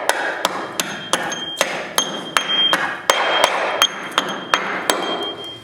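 Hammer blows on steel structure, about three a second, each leaving a short high metallic ring, over a steady rushing noise that fades near the end.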